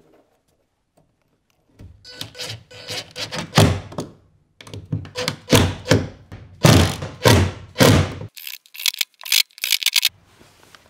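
Cordless impact driver driving screws through a steel hinge bracket into a wall: several bursts of rapid rattling impacts over the motor's hum, starting about two seconds in. A run of sharp clicks follows near the end.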